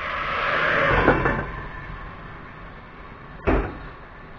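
Water poured from a kettle into a hot, oiled frying pan of chicken thighs, hissing and sizzling. The hiss swells over the first second, then drops to a quieter sizzle. A single metal clank comes about three and a half seconds in.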